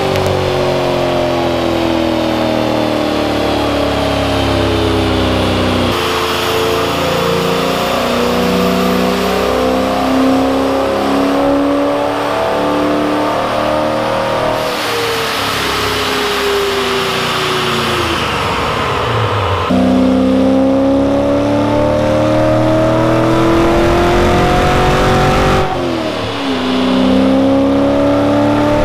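Supercharged 6.2-litre LT1 V8 of a 2017 Camaro SS running on a chassis dyno. The engine revs up under load in long climbs in pitch, winds down in the middle, then climbs again, with a short dip shortly before the end.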